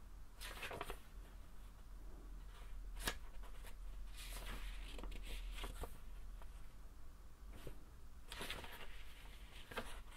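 Quiet handling sounds: scattered rustles and light clicks. The longest rustles come about halfway through and again near the end.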